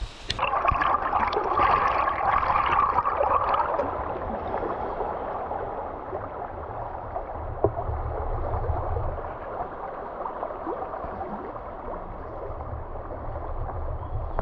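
Flowing river water: a steady rushing and gurgling, loudest in the first few seconds, with a low rumble joining about halfway through.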